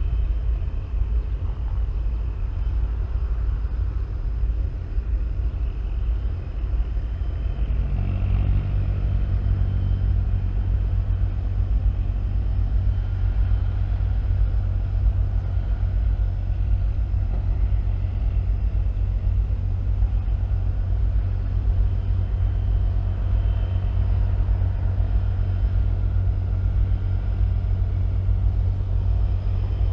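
A heavy engine running with a low, steady rumble; about eight seconds in, a deeper pitched drone joins and holds, as if the engine were put under more load.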